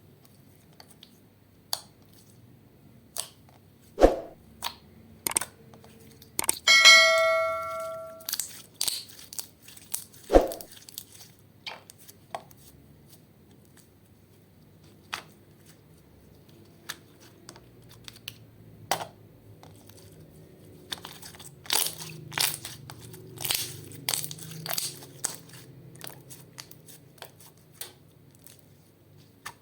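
Slime mixed with eyeshadow being handled: scattered sticky clicks and crackly pops, with a dense run of crackles near the end. Two sharp knocks, about 4 and 10 seconds in, and a short bell-like ring that fades out, about 7 seconds in.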